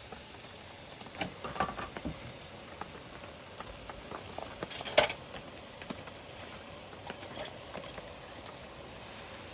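A few light clicks and knocks over a steady background hiss, with one sharper knock about five seconds in.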